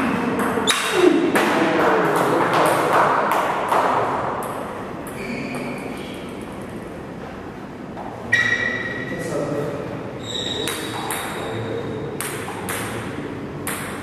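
A celluloid-style table tennis ball clicking sharply off bats and the table in a quick rally, then a scattering of separate ball bounces, each with a short high ringing ping. The loudest click comes about eight seconds in.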